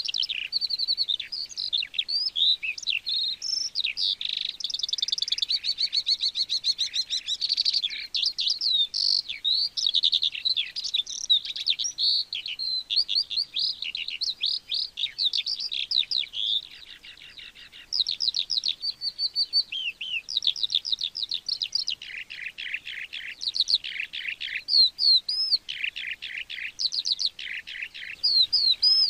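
Eurasian skylark singing its long, continuous song: a fast, unbroken stream of high chirps, whistles and trills, with a short lull just past halfway and runs of rapid repeated notes near the end.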